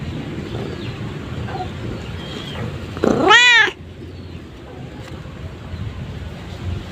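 A cat meows once, about three seconds in: a single loud meow of under a second that rises and then falls in pitch.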